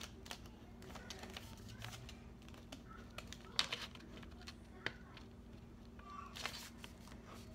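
Faint rustling and light taps of a folded-paper exploding envelope being handled, with a few slightly louder crinkles.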